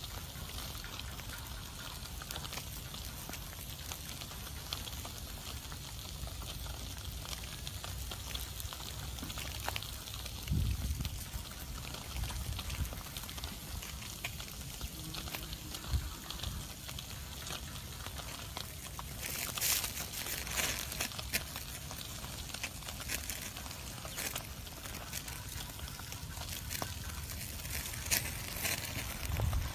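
Small wood fire crackling and hissing under fish roasting on the embers: a steady hiss with scattered small pops, which grow denser and louder about twenty seconds in.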